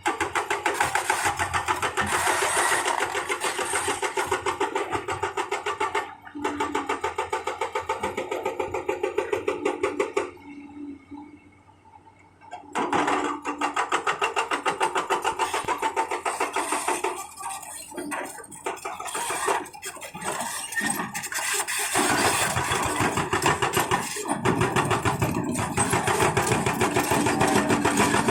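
Excavator-mounted hydraulic breaker hammering in a fast, even rattle over the diesel engine, stopping briefly a few times and starting again.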